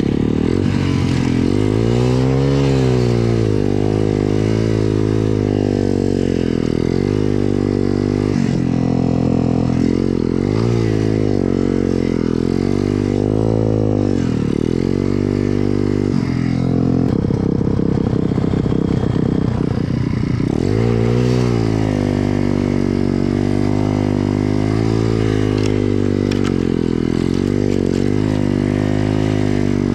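Pit bike's small single-cylinder four-stroke engine being ridden through deep snow, its revs rising and falling over and over with the throttle.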